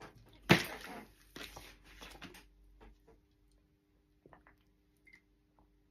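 A man handles and drinks from a plastic water bottle. There is a sharp noisy sound about half a second in and a second noisy stretch a second later. Then come a few faint soft clicks while he drinks.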